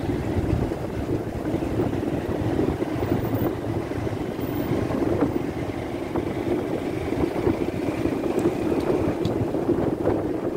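Motorbike riding along a street: its engine running steadily, with wind buffeting the microphone.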